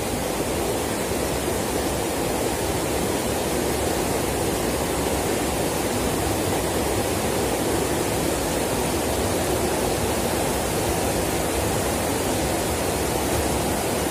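A shallow, rocky stream flowing, a steady rush of water that does not change.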